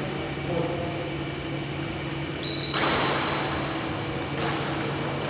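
Steady hum of an electric pedestal fan, with a rush of hissing noise lasting about a second and a half, starting about halfway through.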